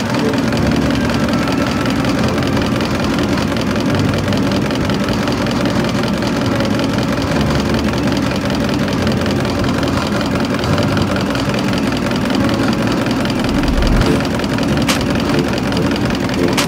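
Diesel injection pump test bench running steadily, driving a Denso four-cylinder rotary injection pump during calibration, with an even mechanical hum. A short click comes near the end.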